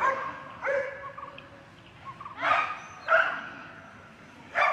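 Dogs barking at a gaur (Indian bison), four short barks spaced irregularly about a second apart.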